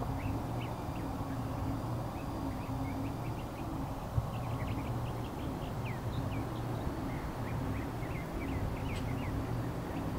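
Small birds chirping, many short rapid chirps, over a steady low rumble.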